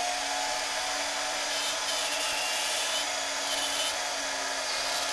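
Electric drill running at a steady speed, boring a pilot hole into a cue ball shifter knob, with an even motor whine.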